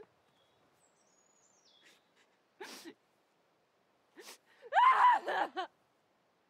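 A young woman crying: a breathy intake of breath partway through, then a sniffing gasp and a high, wavering sob about five seconds in, the loudest sound. A faint bird chirp about a second in.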